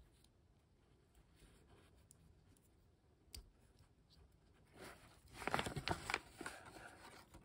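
Handling noise of small plastic pieces: a single click about three seconds in, then a couple of seconds of rapid clicking and rustling near the end.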